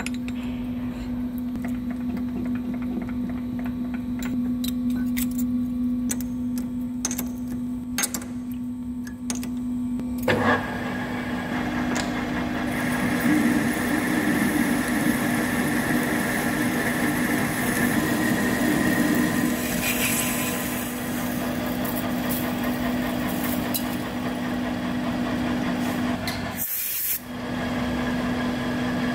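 Metal lathe running with a steady hum, with a few clicks and knocks as a boring bar is fitted in the tool post. About ten seconds in, the boring bar starts cutting inside a stainless steel part and adds a steady, brighter cutting hiss, with a short break near the end.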